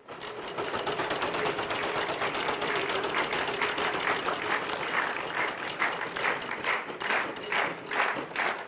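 Game-show prize wheel spinning, its pointer flapper clicking against the pegs in a rapid run of ticks that gradually slows as the wheel loses speed.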